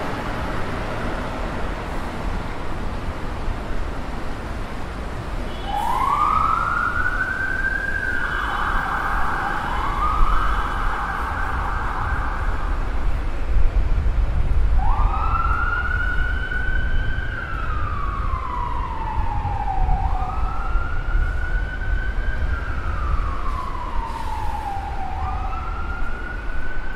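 An emergency vehicle siren wails over the low rumble of city traffic. It comes in about six seconds in and rises and falls in slow sweeps every few seconds. It drops away briefly midway, then returns.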